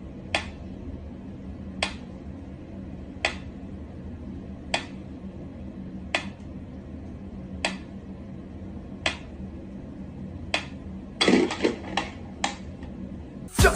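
Sharp single clicks, evenly spaced about every one and a half seconds, over a low steady hum, then a quick run of several clicks near the end.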